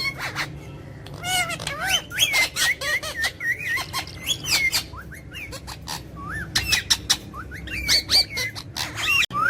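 Pet parrot whistling and chirping: quick runs of short notes that slide up and down, with sharp clicks between them.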